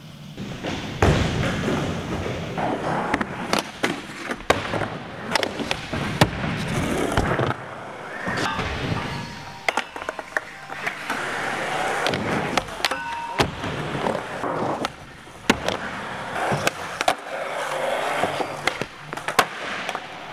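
Skateboard wheels rolling on smooth concrete, broken by many sharp clacks and knocks of the board popping, landing and hitting rails and ledges.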